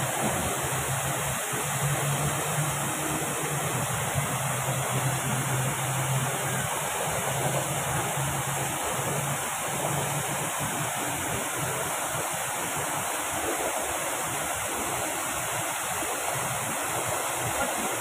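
Man-made waterfall pouring over artificial rockwork into a pond: a steady, even rush of falling water.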